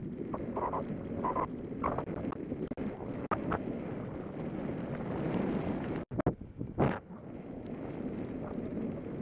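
Wind buffeting the microphone and the rumble of a bicycle rolling along a trail, behind a dog pulling it. A few short knocks and scrapes come through, with a brief dropout and a sharp burst about seven seconds in.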